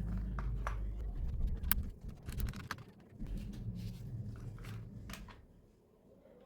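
Scattered small clicks and taps of plastic parts as an instrument cluster is handled and worked apart, over a low hum that fades out about five and a half seconds in.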